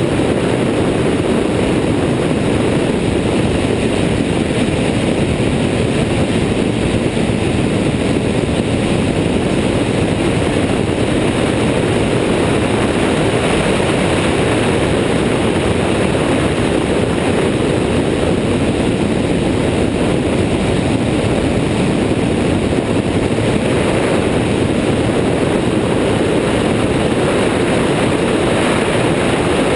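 Steady in-flight noise of an Airborne XT Tundra weight-shift ultralight trike: its pusher engine and propeller running at an even cruise setting under a constant rush of wind.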